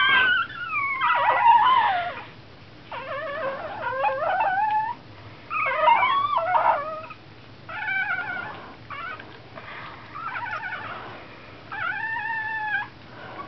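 Nursing Chihuahua puppies whining and crying, a string of pitched cries that rise and fall, coming in short bouts of about a second with brief pauses between them.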